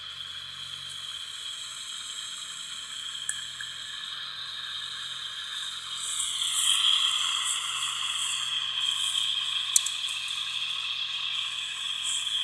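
P-SB7 spirit box radio sweeping through stations: a steady hiss of radio static from its small speaker that grows louder about six seconds in, with a couple of brief clicks.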